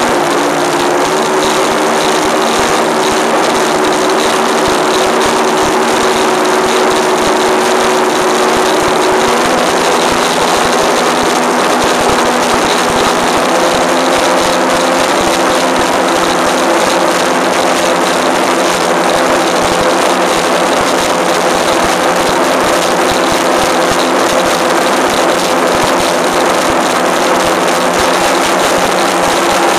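Skater powerboat's MegaSquirt-controlled engine running under way, its pitch stepping up a little about nine to thirteen seconds in and then holding steady, over a loud rush of wind and water.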